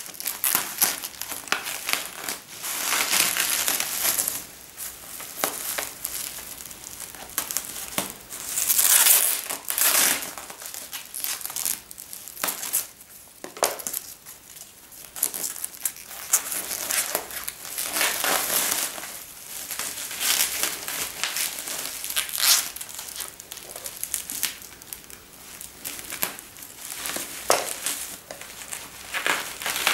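Bubble wrap crinkling and rustling in irregular bursts as it is cut with scissors and pulled away, loudest about nine seconds in.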